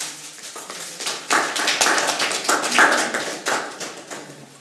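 Audience applauding: many hands clapping, swelling about a second in and dying away near the end.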